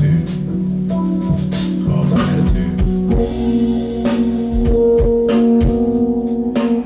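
Live jazz band playing an instrumental passage: a drum kit keeping time under keyboard chords, which settle into a long held chord about three seconds in.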